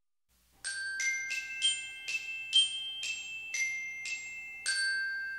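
Intro jingle of about ten struck, bell-like tuned-percussion notes in a short melody, each note ringing on; the last note, struck near the end, is held and fades away slowly.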